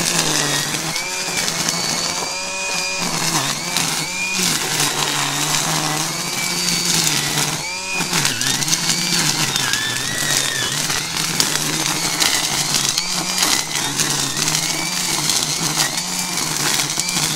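Makita DUR187LZ 18V cordless brushless line trimmer running hard, its two-line nylon head whipping through weeds. The motor's whine sags briefly in pitch each time the line bites into thicker growth, then picks back up.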